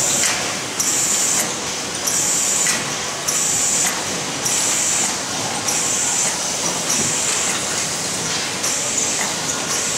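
Roller conveyors and transfer machinery of an automated greenhouse bench system running: a steady mechanical noise with a high hiss that pulses on and off about once a second.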